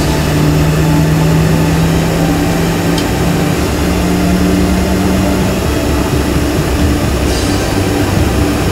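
Jet airliner's engines heard from inside the cabin during the takeoff roll: a loud, steady roar.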